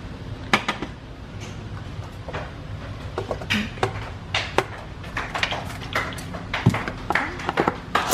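Kitchen clatter: clinks and knocks of dishes, utensils and cupboards being handled, coming thicker from about three seconds in, over a steady low hum.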